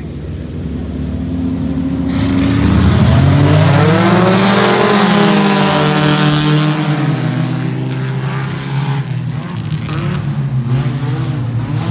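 Dirt-track stock car engines running hard as the field passes close by. One engine rises and then falls in pitch as it goes past, loudest a few seconds in, with the others still running behind it.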